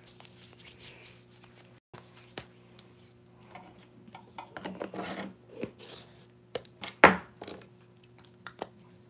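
Teeth being brushed: irregular scrubbing and rubbing with small clicks, and one loud sharp sound about seven seconds in, over a steady low hum.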